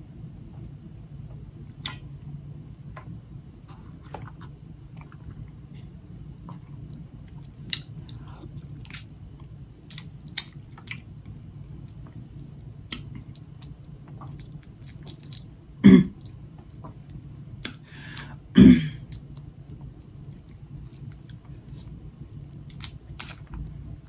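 Close-miked eating sounds: crab shell crackling and snapping as it is picked apart by hand, mixed with chewing, with two louder cracks a couple of seconds apart about two-thirds of the way through. A steady low hum runs underneath.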